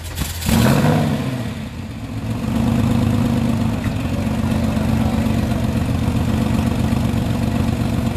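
Supercharged Porsche 911 air-cooled flat-six being revved: a quick blip that rises and falls about half a second in, then held at steady raised revs from about two and a half seconds.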